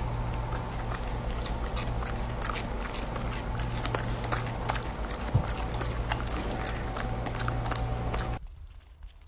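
Husky chewing a chip, many small crunching clicks over a steady low hum.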